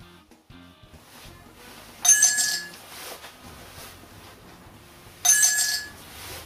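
Two short, loud electronic sound effects from a Handy Sound gadget, each about half a second long with a held tone, about three seconds apart.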